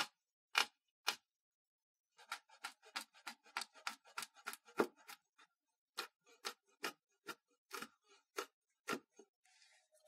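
Large kitchen knife chopping red onion and chili on a bamboo cutting board: sharp knocks of the blade on the wood, three slow strokes, then after about two seconds a quick run of chops, then slower steady chopping. Near the end a brief soft scrape as the chopped pieces are pushed off the board into the pan.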